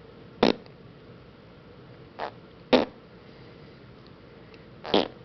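Sun conure mimicking a fart noise: four brief sputtering raspberries, a couple of seconds apart, the second one weaker.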